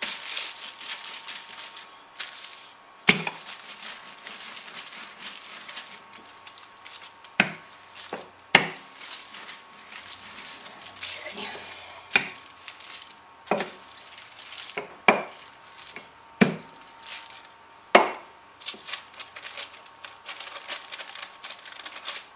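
Wooden rolling pin working a dry pie crust between two sheets of wax paper: the paper crinkles and rustles throughout, with about nine sharp wooden knocks from the pin spread unevenly through it.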